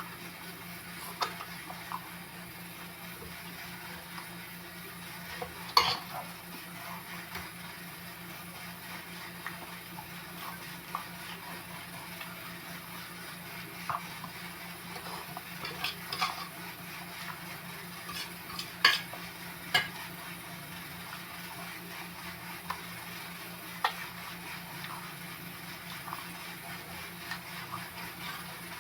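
Close-miked eating of chicken feet: chewing and mouth sounds with scattered sharp clicks and smacks, the loudest about six and nineteen seconds in, over a steady low hum.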